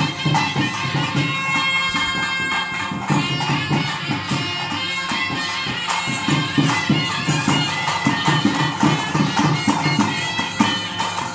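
Traditional ritual music: a loud reed wind instrument plays a held, wavering melody over fast, steady drumming with jingling percussion.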